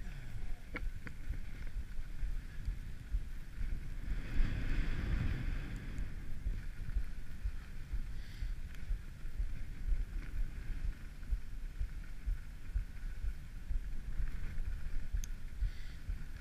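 Wind rumbling on an action camera's microphone as a skier glides down a groomed run, with the hiss of skis sliding on packed snow swelling about four seconds in. A couple of light clicks come near the start.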